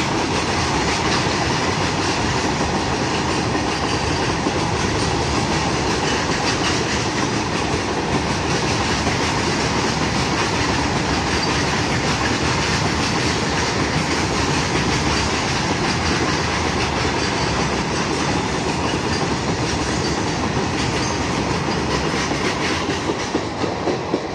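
Indian Railways freight train of open steel wagons passing at close range: a steady, loud noise of wheels on rail and wagons running by. Near the end it eases slightly and a few sharp clicks stand out as the brake van at the rear goes past.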